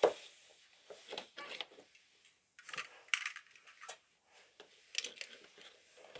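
Irregular small clicks, taps and rustles, with a sharp knock at the very start and a short run of crackly rustling a little before the middle.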